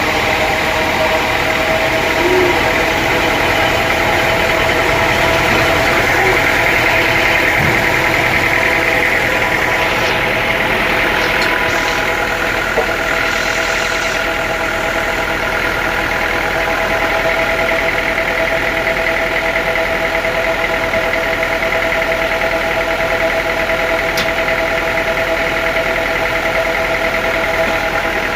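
Sawmill machinery running steadily, a constant hum of several tones with no letting up.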